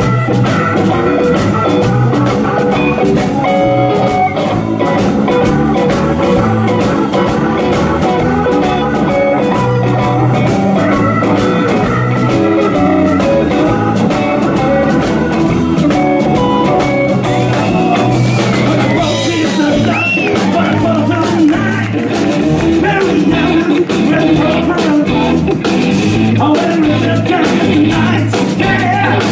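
Live blues-rock band playing at full volume: drum kit, electric bass, electric guitar and a Nord Electro 3 keyboard, with a brief bent note about two-thirds of the way through.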